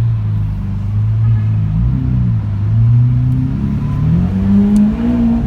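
Lamborghini Aventador V12 engine running at low revs with a steady low note, then rising in pitch from about three seconds in as the revs climb.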